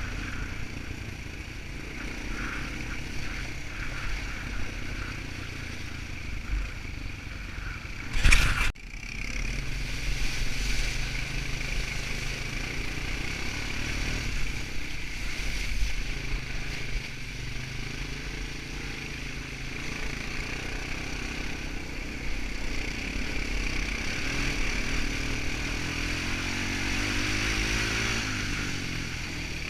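Quad bike engine running under way over a rough, muddy trail, with rattles from the machine and a single loud knock about eight seconds in; the engine note climbs briefly near the end.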